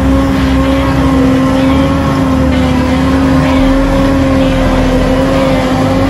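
CLAAS Jaguar 990 self-propelled forage harvester running under load as it picks up and chops a windrow of wheat silage, a steady drone with a held pitch.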